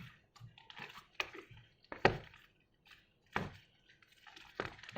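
Freshly activated sticky slime being mixed, giving irregular soft wet smacks and taps, a few louder ones scattered about a second apart.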